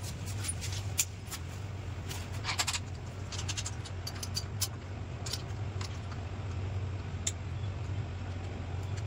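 Scattered clicks and metallic clinks of luggage and fittings being handled and taken off a motorcycle by hand, over a steady low hum.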